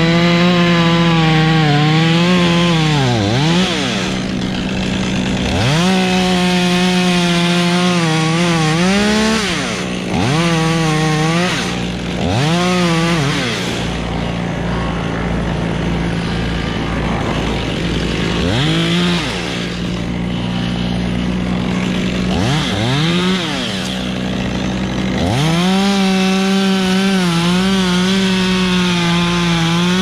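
Two-stroke chainsaw cutting up silver maple limb wood, held at full throttle through a series of cuts. Between cuts it drops back several times, about every few seconds, with a quieter lull partway through.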